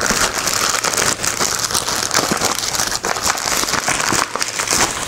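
Plastic courier mailer bag crinkling and rustling continuously as it is handled and pulled open.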